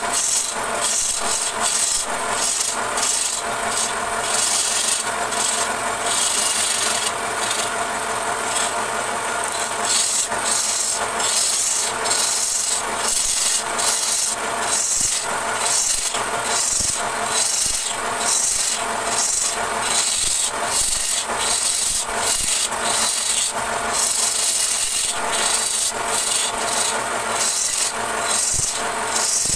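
Turning gouge cutting a spinning wooden vase blank on a wood lathe: a steady rasping hiss of the cut that pulses about once a second as the tool is worked along the piece, over the steady hum of the running lathe.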